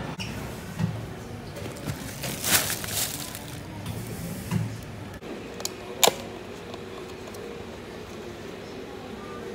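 Handling sounds at a table over a steady room background: a brief rustle of a plastic shopping bag, a few light knocks, and one sharp tap about six seconds in.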